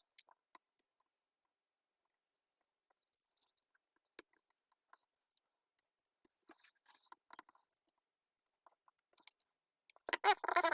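Faint, scattered small clicks and scrapes of hand tools working on a circuit board during soldering, with a louder, wavering burst near the end.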